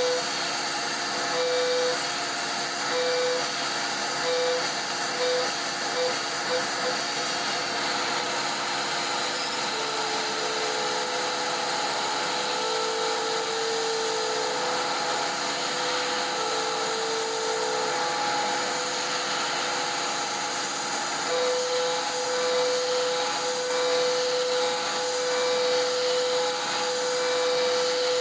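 CNC router's 11 hp Hiteco spindle milling a pocket with a three-flute bit at 10,000 rpm: a steady hum from the cutter's tooth strikes over a hiss of machine noise. The tone cuts in and out over the first several seconds, sits slightly lower in pitch in the middle, and holds steady in the last third as the bit stays in the cut.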